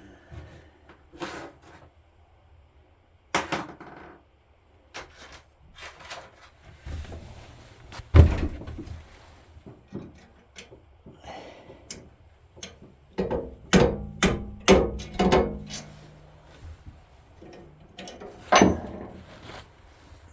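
Irregular metal knocks and clinks of hand tools on a Craftsman (Bercomac) snowblower auger, working at a stuck shear bolt with a flathead screwdriver standing in for a punch. The loudest single knock comes about eight seconds in, and a quick run of ringing strikes follows a few seconds later.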